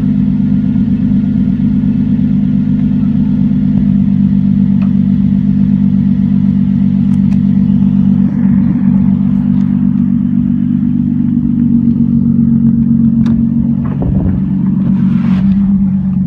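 Nissan 350Z's 3.5-litre V6 idling steadily through the stock exhaust shortly after a cold start, with a few faint clicks over the engine.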